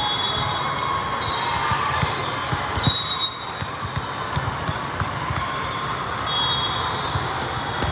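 Volleyballs bouncing and being struck in a busy gym, many short knocks over a steady murmur of the hall. A short high squeal comes about three seconds in, with fainter ones around it.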